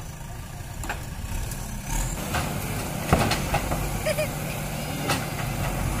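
JCB backhoe loader's diesel engine running steadily, with sharp knocks and clatter of broken brick as the bucket works the demolition rubble. The loudest knock comes about three seconds in.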